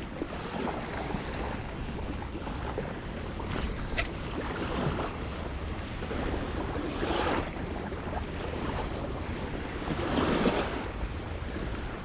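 Wind rumbling on the microphone over washing water, swelling louder twice, with one sharp click about four seconds in.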